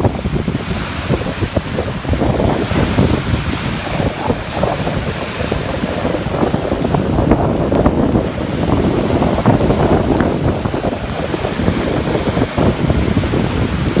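Caspian Sea waves washing steadily, with wind buffeting the microphone.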